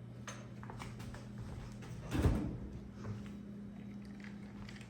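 Kitchen handling noises while sweet tea is being fetched: a few light clicks, then one dull knock about two seconds in and a softer one a second later, over a steady low hum.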